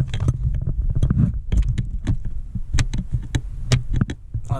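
Sharp metallic clicks and taps from a steel ratchet extension knocking against the car battery's terminals and the detached negative cable clamp as it bridges the cable to the positive terminal. A steady low rumble runs underneath.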